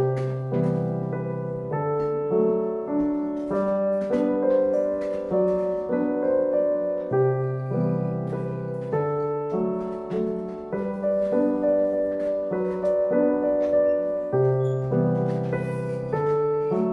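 Piano music: a calm piece of flowing broken chords over held bass notes.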